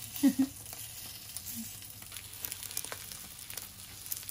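Food sizzling in a hot frying pan, a steady hiss with a few faint clicks as it is turned.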